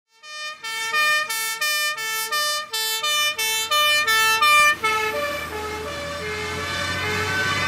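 Dutch fire engine's two-tone siren alternating between a high and a low note, about three changes a second, as the MAN fire truck drives past. The siren fades after about five seconds as it moves off, over the low rumble of the truck's engine.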